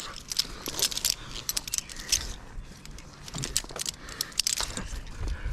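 Metal climbing hardware, such as carabiners and rigging on the harness, clinking and jangling in many quick, irregular clicks as the climber shifts position.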